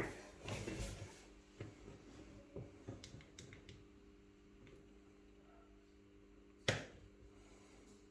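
Faint scattered clicks and taps of small objects being handled on a work surface, with one sharper click about seven seconds in, over a steady low hum.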